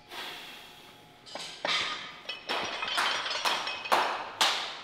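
A run of about eight sharp smacks, unevenly spaced and coming closer together and louder toward the end, each with a short echo.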